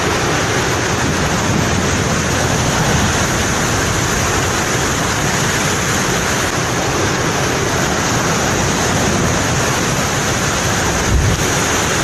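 Heavy surf breaking against a rocky shore: a loud, continuous wash of crashing waves and spray. A brief low thump comes near the end.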